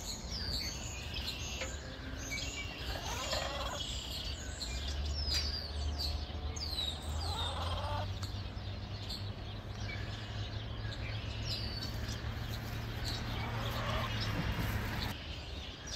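Domestic fowl calling a few times, with small birds giving short, high, falling chirps over them. A low steady hum comes in about a third of the way through and stops shortly before the end.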